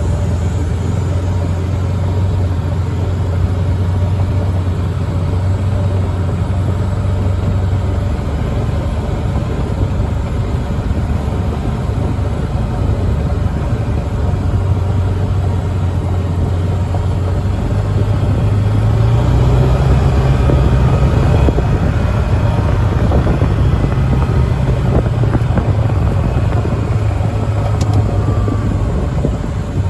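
Vehicle engine running steadily while riding along, with rumbling road noise. The engine note rises about 18 seconds in and stays higher for around ten seconds before settling back.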